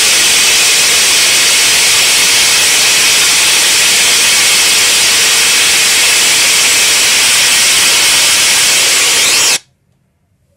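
A very loud, steady rushing hiss with no clear pitch, which cuts off abruptly near the end.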